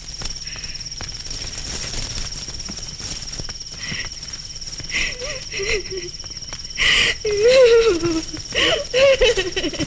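Crickets chirring steadily. From about five seconds in, a woman starts wailing and sobbing, her voice gliding up and down, louder from about seven seconds.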